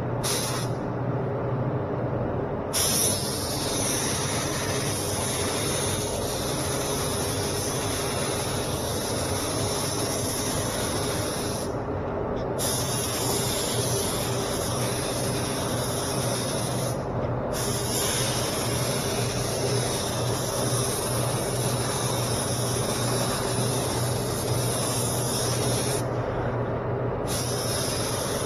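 SprayIT R500 LVLP gravity-feed spray gun hissing steadily as it lays down base coat, stopping briefly about four times between passes. A steady low hum runs underneath.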